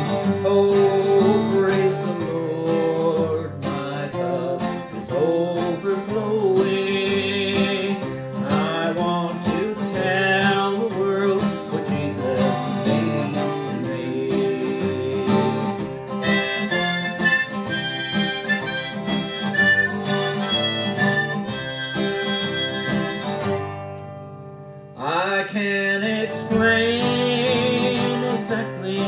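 Instrumental break of a country gospel song: harmonica playing over strummed acoustic guitar, dipping briefly near the end.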